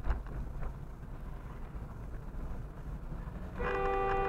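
Low road rumble from a car driving over a rough road surface, with a couple of light knocks near the start. About three and a half seconds in, a car horn starts a long, steady, loud blast that is still going at the end.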